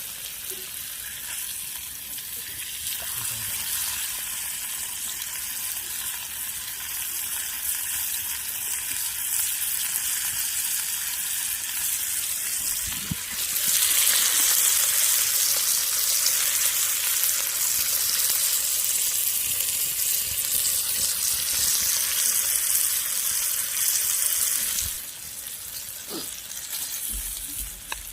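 Pork frying with garlic and black pepper on a steel griddle over a campfire, a steady sizzle. The sizzle grows louder about halfway through and falls back a few seconds before the end.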